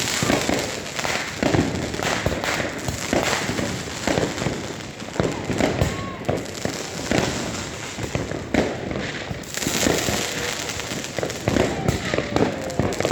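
Many fireworks going off at once: a dense, irregular barrage of bangs and crackling bursts with no pause.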